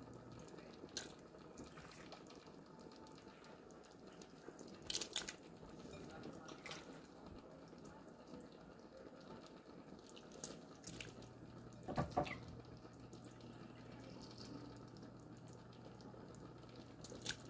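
Raw shrimp being added to a pot of gumbo: faint, scattered wet plops and clicks, the loudest about five and twelve seconds in. A low steady hum comes in about eleven seconds in.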